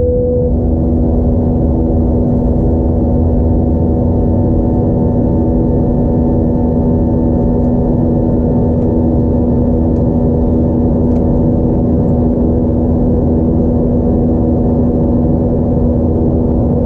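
Airbus A320's IAE V2500 turbofan engines heard from inside the passenger cabin: a steady drone with a constant humming tone.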